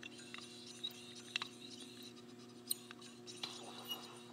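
Faint handling noise: fingers rubbing and tapping a glass disc against a projection TV's metal housing, with a few small clicks over a steady low hum.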